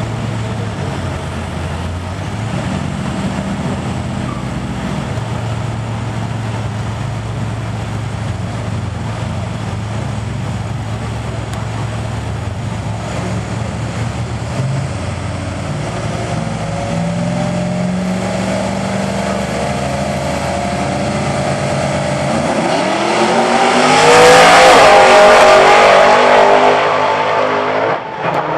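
A Chevrolet pickup truck and a Ford Mustang idling side by side at a drag-strip starting line with a steady low engine drone. About 23 seconds in they launch at full throttle, and the engines rise sharply in pitch and loudness for a few seconds as the two accelerate away down the strip.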